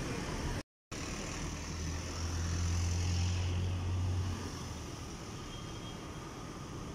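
Night street traffic noise, with a vehicle engine's low rumble building about a second and a half in and fading just after four seconds. The audio cuts out briefly, under a second in.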